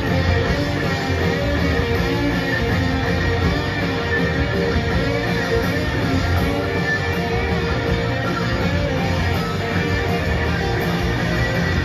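Live rock band playing at full volume, electric guitars strumming over bass and drums, heard from among the audience in a large hall.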